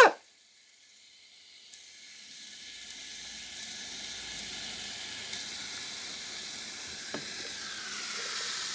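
Baking soda and citric acid fizzing in a plastic cup after water is added: a fine hiss that swells steadily louder as carbon dioxide bubbles out of the reaction.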